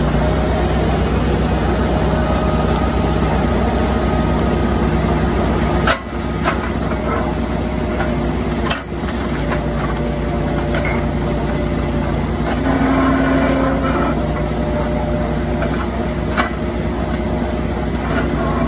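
Engine of a hydraulic log splitter running steadily under load, with two sharp knocks about six and nine seconds in and a brief higher tone around thirteen seconds in as a large log round is pushed through the wedge.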